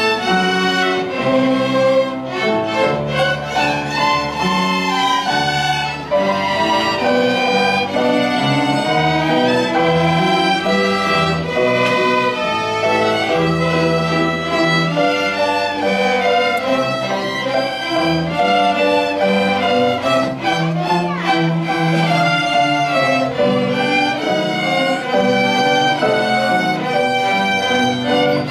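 Violin playing a melody over a lower accompaniment, in continuous music.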